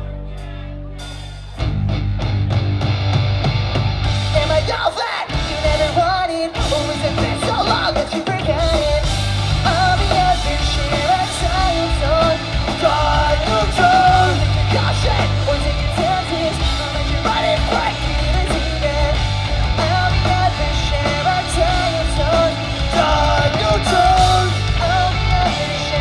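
Live pop-punk band playing: distorted electric guitars, bass and drums. A held chord comes first, then the full band crashes in about a second and a half in. Shouted singing runs over the band through most of the rest, with a couple of short breaks in the beat a few seconds after the band comes in.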